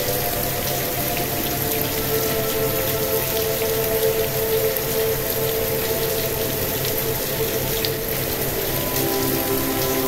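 Steady rain with scattered drop ticks, mixed with a soft synthesizer drone of several held tones that shift to a new chord about nine seconds in.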